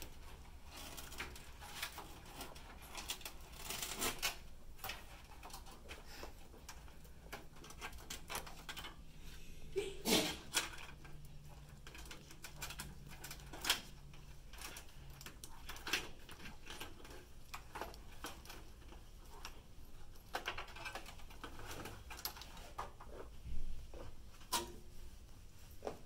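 Sleeved modular power-supply cables being pulled and pushed through the routing holes of a metal PC case: irregular rustling and scraping with light clicks and knocks, the sharpest about ten seconds in and again near the end.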